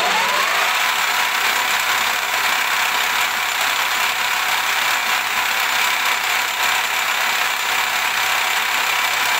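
Milling machine spindle running a 6 mm end mill as it cuts a keyway slot into a 4340 chromoly steel blank: a loud, steady grinding and whirring of the cutter working in the steel.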